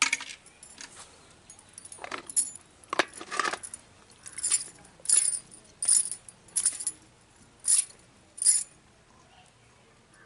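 Boiled snail shells clicking against each other and an aluminium basin as they are picked out and shelled by hand: about a dozen separate sharp clinks.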